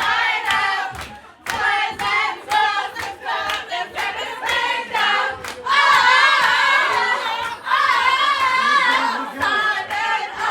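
A group of voices singing with hand claps, with a long wavering held note a little past the middle.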